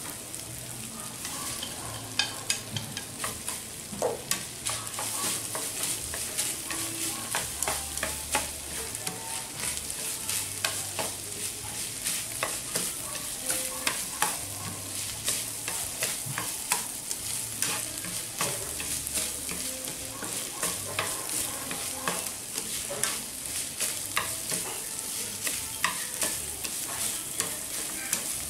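Minced meat sizzling in a hot metal frying pan, with a steady frying hiss. Chopsticks stir and toss it, tapping and scraping the pan in frequent short clicks.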